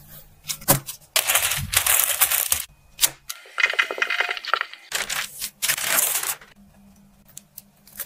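Cookie dough being handled and rolled out with a wooden rolling pin: several bursts of scraping and crumbly crushing, with a few sharp knocks between them.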